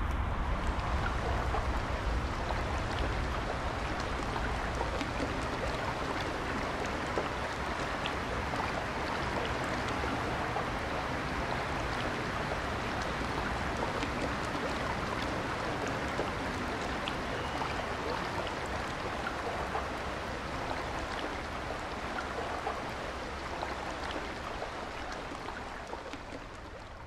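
Water trickling and splashing steadily, an even wash of small drips and ticks, with a low rumble under it in the first couple of seconds. It fades out gradually near the end.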